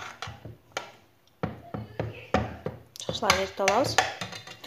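A metal spoon stirring in a metal saucepan of water and melting butter, giving a string of separate clinks and scrapes against the pan. Speech follows near the end.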